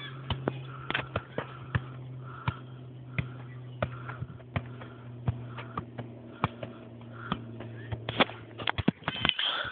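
A football being kicked and bounced during ball tricks: irregular sharp knocks, one or two a second, over a steady low hum that stops about a second before the end.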